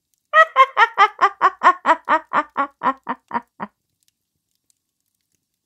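A cackling laugh: a quick run of about fifteen pitched 'ha's, about four a second, growing fainter and stopping a little before four seconds in.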